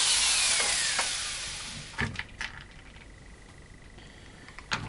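Power screwdriver running, its whine falling and fading out about two seconds in, as it backs out the screws holding a hammer drill's plastic housing together. It is followed by a few sharp plastic clicks as the housing comes apart.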